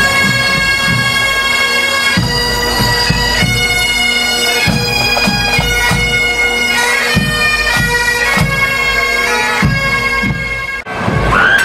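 Pipe band playing: bagpipes sounding a tune over their steady drones, with bass and snare drums beating time. The music cuts off abruptly near the end.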